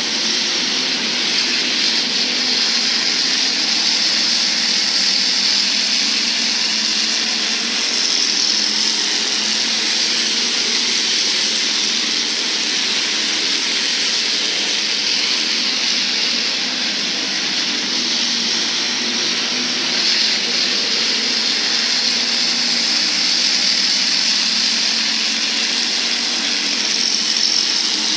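Hobby stock race cars running laps together: a loud, steady engine din that swells a little as the pack comes around.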